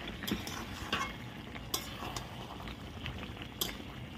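A spatula stirring chicken and whole fried potatoes through a thick, frying curry in a metal kadai. The sizzle runs steadily underneath, broken by a few sharp scrapes and knocks against the pan.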